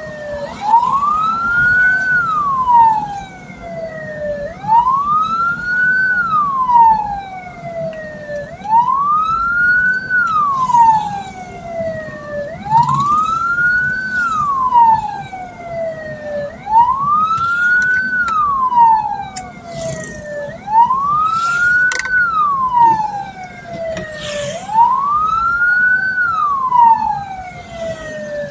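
Hearse siren wailing in a slow repeating cycle: each call rises quickly and falls away slowly, about every four seconds, seven times over. Steady road and engine rumble runs underneath.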